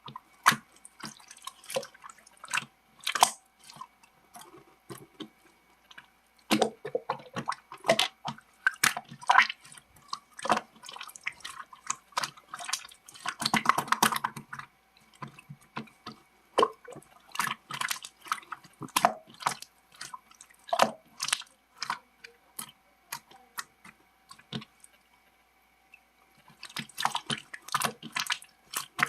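Close-up wet clicking and crackling in irregular clusters, with short pauses between them, over a faint steady hum.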